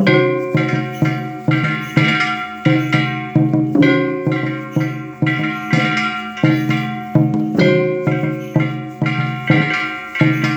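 Shishimai lion-dance percussion: repeated strikes about two a second, each leaving ringing, metallic-sounding tones that fade before the next.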